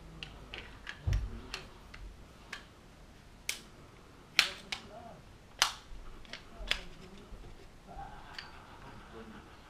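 Sharp metal clicks of a pistol's slide and frame as it is reassembled by hand, one every second or so, the loudest in the middle, with a dull thump about a second in.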